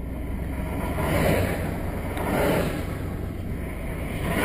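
Road noise inside a moving truck's cabin: a steady low engine and drivetrain hum under the rush of tyres and wind, swelling twice as traffic moves past.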